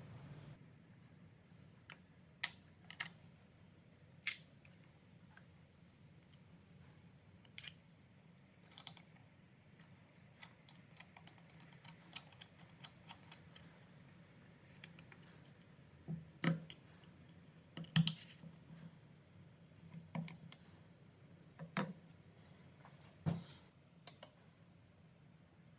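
Scattered light knocks and clicks of wood and hand tools being handled and set down, with a few firmer knocks near the end, over a faint steady hum.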